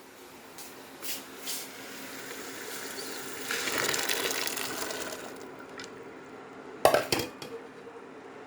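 Water running or being poured, swelling for about two seconds and fading, then a sharp clatter of a utensil or pot about seven seconds in.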